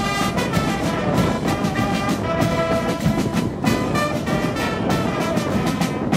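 Brass band music: trumpets and trombones playing over drums.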